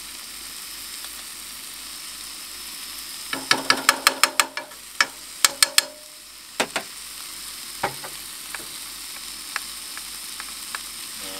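Vegetables sizzling steadily in a frying pan on a gas camp stove. A few seconds in, a metal spoon knocks sharply in two quick runs, each knock ringing briefly, followed by a few single taps.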